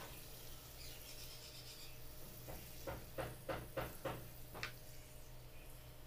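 Faint watering of potting soil from a hand pump pressure sprayer, with a quick run of about seven short rubbing strokes in the middle.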